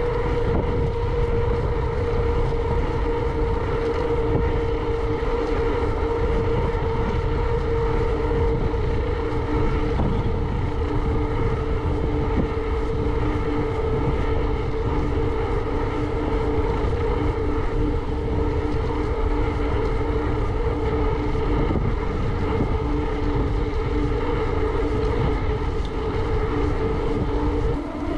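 Wind rushing over the camera microphone while riding a bicycle, with a steady mid-pitched hum underneath; a second, lower hum joins partway through.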